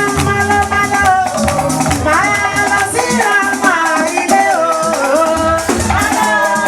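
Church praise music: a held, sliding melody line over rattling shaker-like percussion keeping a steady beat.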